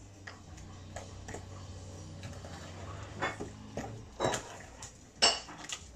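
Wooden spoon beating an egg into creamed cake mixture in a glass mixing bowl: soft stirring with scattered clicks, and a few sharper knocks of the spoon against the glass in the second half, the loudest near the end.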